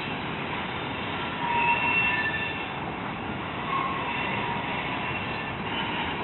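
Freight train of covered hopper cars rolling past over a steel bridge: a steady rumble of wheels on rail, with thin high squeals from the wheels coming and going.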